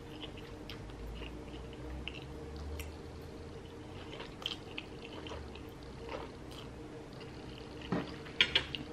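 Wet mouth sounds of a person eating noodles close to the microphone: slurping strands and chewing, with small scattered lip smacks over a faint steady hum. There are a few louder clicks near the end.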